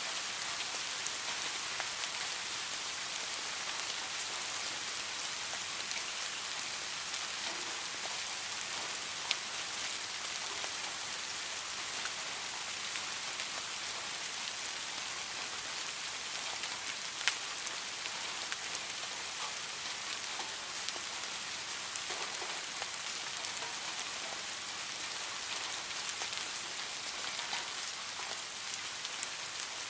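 Steady rain falling on a surface, an even hiss with scattered sharper drop taps, the most distinct a little after 9 seconds and at about 17 seconds.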